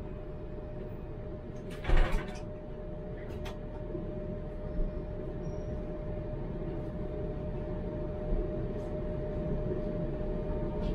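Inside a tram: a short clatter about two seconds in, like a sliding door shutting, then a steady hum over a low running rumble that slowly grows louder, with a few light clicks.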